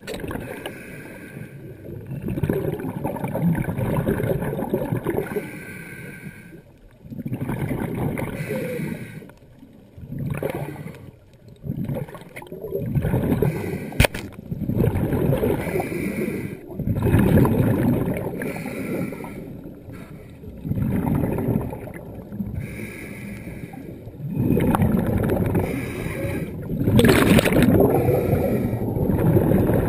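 Scuba regulator breathing heard underwater: a hissing draw on each inhale and a rush of exhaled bubbles, repeating every five to six seconds. One sharp click about halfway through, from the speargun being fired.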